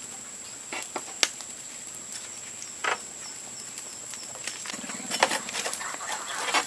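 Wood fire crackling in a metal barrel stove, with scattered sharp clicks and the odd knock. About two-thirds of the way in, a steadier hiss comes up and the crackling gets busier.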